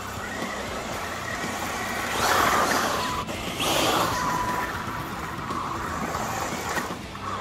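Losi Super Baja Rey 2.0 1/6-scale electric RC truck on 8S LiPo power driving on gravel: the brushless motor whines and the tyres scrabble on the loose stones, with two hard bursts of throttle about two and three and a half seconds in.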